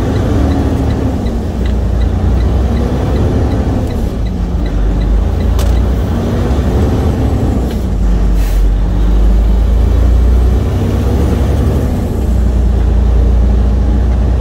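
Freightliner Cascadia semi-truck's diesel engine running under way, its pitch slowly rising and falling. A short hiss about eight and a half seconds in is typical of an air-brake release.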